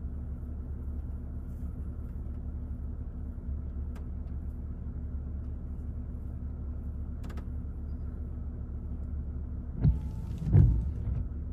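Motor vehicle driving, a steady low engine and road rumble, with two short thumps near the end.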